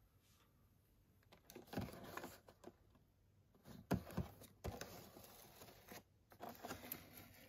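Faint handling noise of a cardboard display box with a clear plastic window being picked up and turned in the hands: irregular taps, rubs and crinkles of plastic and card, starting about a second and a half in.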